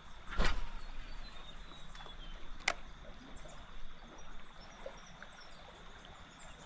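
Quiet outdoor river ambience with faint bird chirps. A sudden thump comes about half a second in, and a sharp click a little before the three-second mark.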